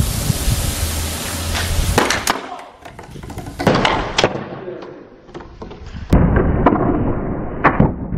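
A loud hissing spray that cuts off abruptly about two seconds in, followed by a scatter of sharp pops and knocks. This fits a capped bottle of vinegar and baking soda bursting under gas pressure.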